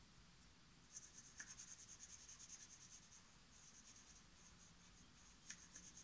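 Graphite pencil scratching faintly on drawing paper in quick, repeated shading strokes. The strokes start about a second in and ease briefly midway.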